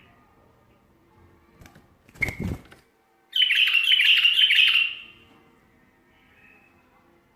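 Bulbul singing one loud, rapid warbled phrase of about a second and a half, a little after a brief dull knock.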